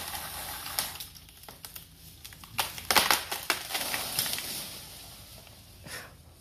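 Craftsman 20V cordless pole saw's chain running and stopping about a second in; then a large tree limb snaps and crashes down through the leaves, a loud burst of cracking and crackling branches about three seconds in, with a last brief rustle near the end.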